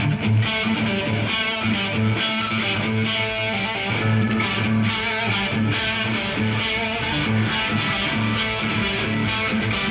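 Rock band playing live: electric guitar over bass and drums, with a steady beat.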